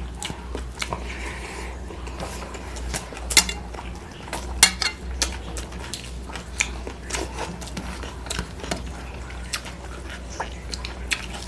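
Fingers mixing rice and curry on steel plates while eating by hand: scattered light clicks and taps against the steel, with two louder ones a few seconds in, over a steady low hum.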